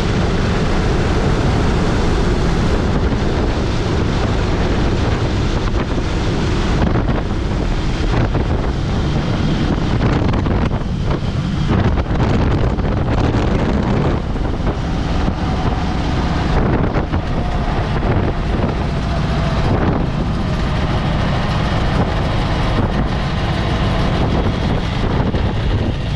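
Raj Hamsa X-Air Hanuman ultralight landing and rolling out on the runway: wind rushes through the open cockpit and buffets the microphone, with the engine and propeller running underneath.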